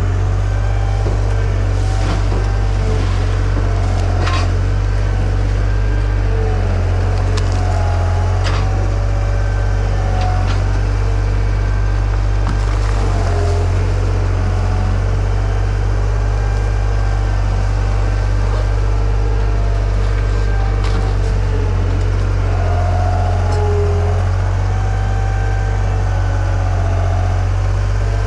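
1997 skid steer's engine running steadily under load, with a faint whine that rises and falls as the hydraulics work the grapple. A few sharp knocks and cracks are scattered through it.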